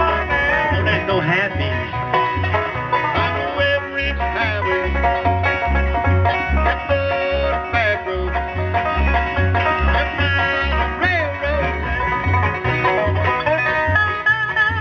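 Bluegrass band playing an instrumental break: banjo picking with guitar over a steady bass line, without singing.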